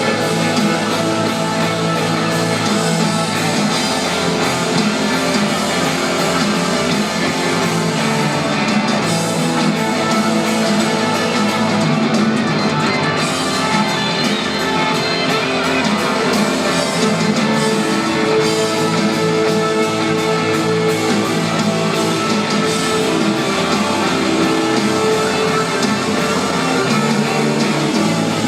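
Live rock band playing loudly and without a break, guitars to the fore over the full band.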